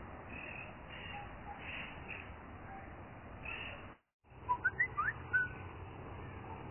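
Steady outdoor background hiss, broken by a brief dropout a little past halfway, then a bird calling: a quick run of short, rising whistled chirps.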